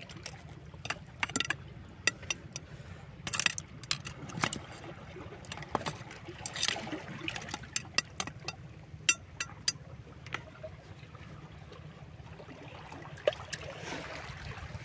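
Stones and shells knocking and clattering on a rocky shore while shellfish are picked over: many sharp clicks through the first ten seconds or so, over a soft wash of lapping water that swells briefly near the end.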